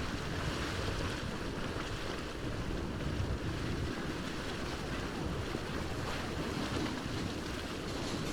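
Steady rush of fast-moving floodwater, with wind buffeting the microphone.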